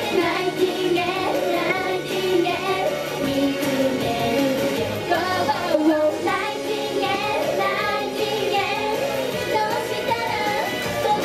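Young female idol singers performing a Japanese pop song live into handheld microphones, their voices and the backing music amplified through a PA speaker.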